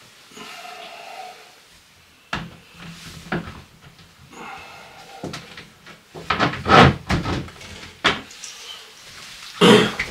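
Hard plastic clicks and knocks as a toilet seat and lid are handled and fitted onto a plastic compost toilet. The knocks come in irregular clusters, loudest a little past the middle and once more just before the end.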